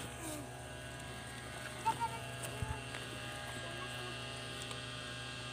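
A steady low hum runs throughout. Faint brushing sounds and a soft thump come about halfway through.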